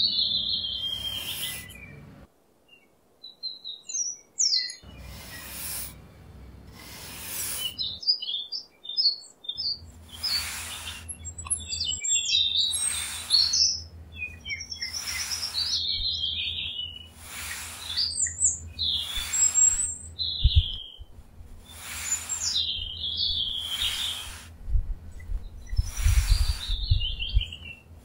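Small metal trowel scraping and digging into damp sand in repeated short strokes, one every second or two, while birds chirp.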